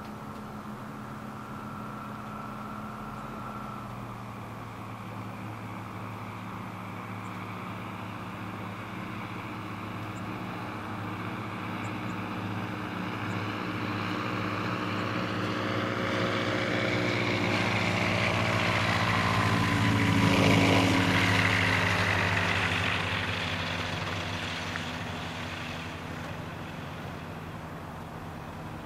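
Titan Tornado II light-sport plane's engine and propeller, growing louder as it approaches, passing close by about two-thirds of the way through with a drop in pitch, then fading away.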